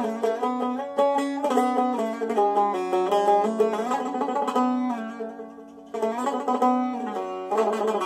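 Sazbüş, a long-necked cümbüş with a metal bowl and skin head, improvising: quick runs of plucked notes over a low string that keeps ringing underneath. The notes die away about five seconds in, then the playing starts up again with a fresh attack.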